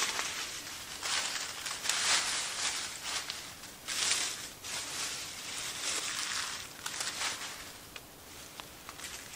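Dry fallen leaves crunching and rustling as they are scooped up by hand and piled on, in repeated bursts that ease off near the end.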